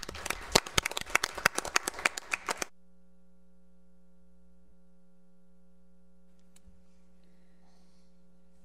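A small group of people clapping for nearly three seconds, stopping abruptly; then only a steady faint electrical hum.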